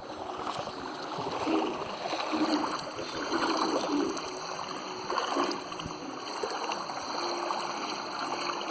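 Water lapping and gurgling in uneven swells, with a faint steady hum beneath.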